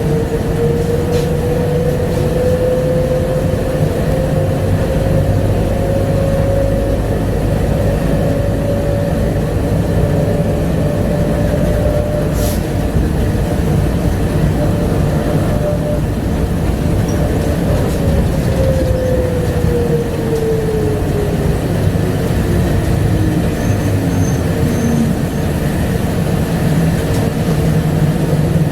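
Bombardier APM100 people-mover train running on its rubber tyres, with a steady rumble under a motor whine. The whine climbs slowly as the train speeds up, holds, then falls away through the second half as it slows.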